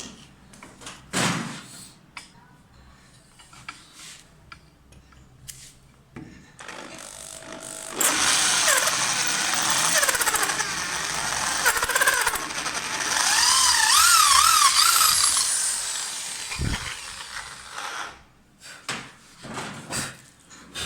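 Handling clicks and knocks, then a mini grinder runs for about ten seconds from about eight seconds in, its whine wavering up and down as it is pressed into the work; it stops and the small clicks and knocks return.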